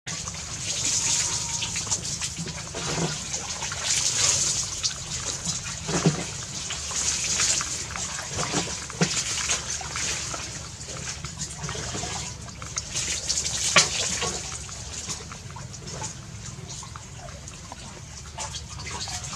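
A puppy lapping and chewing watery rice from a bowl: irregular wet slurps and smacking clicks.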